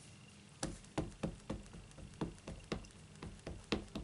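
A stamp mounted on a clear acrylic block being tapped repeatedly onto an ink pad to ink it, a quick series of light knocks at about four a second.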